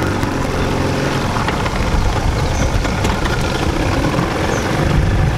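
Small tiller-steered outboard motor running steadily as it pushes a boat across choppy water.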